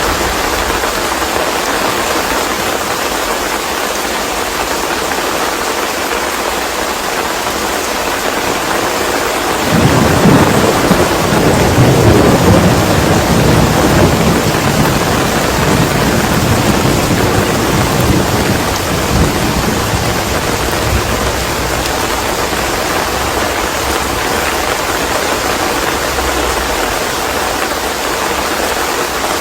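Steady rain falling, with a long rumble of thunder that breaks in suddenly about ten seconds in and dies away over the next ten seconds or so.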